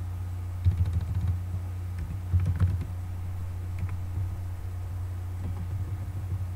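Typing on a computer keyboard: two quick flurries of keystrokes in the first three seconds, then a few scattered taps, over a steady low hum.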